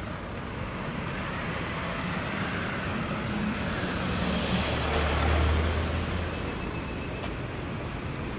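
Street traffic noise, with one motor vehicle's engine passing close and at its loudest about halfway through.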